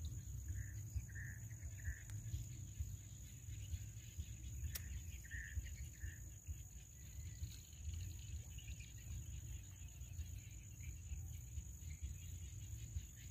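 Insects shrilling with one steady, high-pitched tone, with a few short chirps now and then and a low rumble underneath; a single click about halfway.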